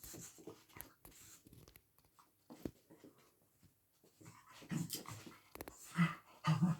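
A dog whining and grumbling in short pitched bursts that grow louder over the last few seconds, after soft scuffling and clicking.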